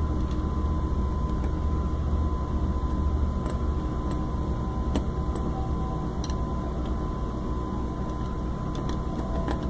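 A few faint metallic clicks as a screwdriver works the set screws of an industrial straight-stitch sewing machine's rotary hook to loosen them, over a steady low hum.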